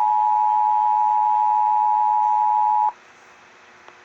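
Emergency Alert System attention signal: a loud, steady two-tone alarm that cuts off abruptly about three seconds in, leaving faint hiss. It announces a severe thunderstorm warning.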